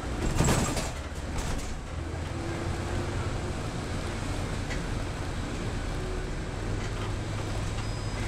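City bus under way, heard from inside the cabin: steady low engine hum and road rumble, with a short rush of noise about half a second in.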